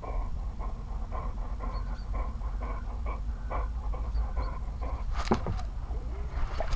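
A dog panting in quick, even breaths, heard close up through a camera mounted on its own head. There is a sharp knock about five seconds in.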